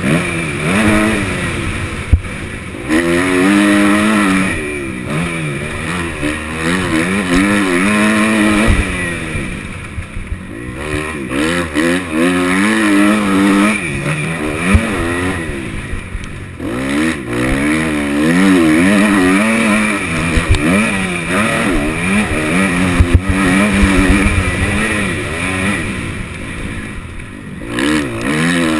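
2013 Kawasaki KX250F motocross bike's four-stroke single-cylinder engine, revving up and falling back over and over as the throttle is worked around the track. There are brief dips where the throttle is shut, about a third of the way in, past halfway and near the end.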